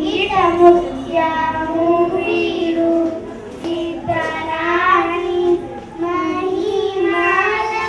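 Two children singing a song into microphones, in held phrases with short breaths between them.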